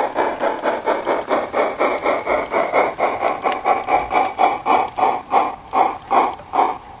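16mm-scale model narrow-gauge steam locomotive chuffing as it hauls a goods train, the beats slowing from about four a second to about two a second as it draws to a stop.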